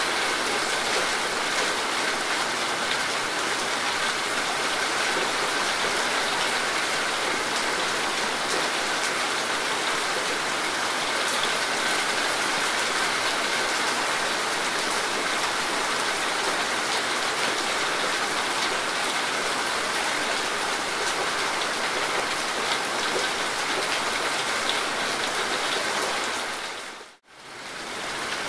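Steady rain falling on leaves and foliage. Near the end it fades out to silence for a moment and then comes back.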